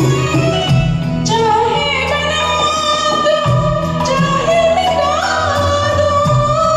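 A woman singing a Bollywood film song over instrumental backing music. Her voice comes in about a second in with long, held notes.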